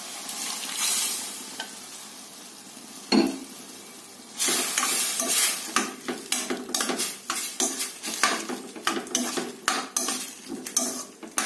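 Cooked moong dal going into a hot stainless-steel kadai of sautéed drumstick leaves with a light sizzle, then a knock, then a long run of quick strokes as a metal spoon stirs and scrapes against the steel pan.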